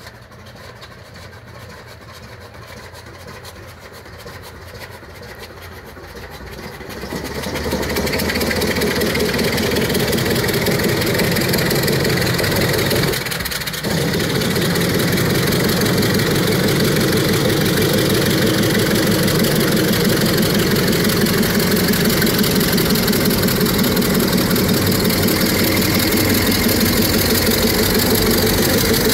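P-47 Thunderbolt's Pratt & Whitney R-2800 radial engine starting: faint at first, it catches about seven seconds in, falters briefly around thirteen seconds, then runs loud and steady. It is the first start after months of sitting, with oil being cleared from the lower cylinders and supercharger, and white smoke is pouring from the engine.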